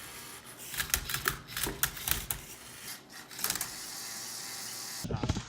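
LEGO EV3 Rubik's cube solver robot (MindCub3r) turning and flipping the cube. Its plastic arm and turntable make a quick run of sharp clicks and clacks, with a second short burst about three and a half seconds in.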